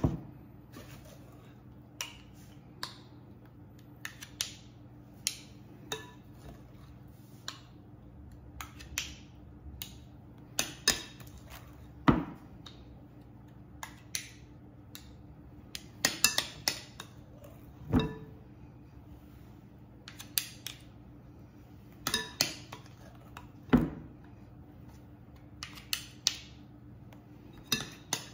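Metal spoons clinking and scraping against each other and against a glass mixing bowl as thick muffin batter is spooned into paper cups, in irregular light clicks about once a second.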